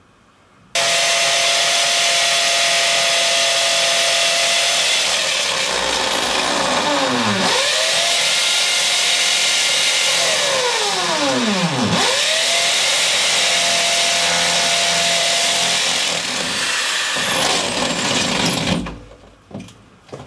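Corded electric drill boring into ceramic wall tile. It starts about a second in and runs steadily. Its motor pitch drops sharply and climbs back twice. It stops shortly before the end, followed by a few light knocks.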